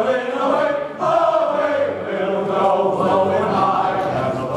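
A chorus singing with a live orchestra accompanying, with a brief dip in loudness about a second in.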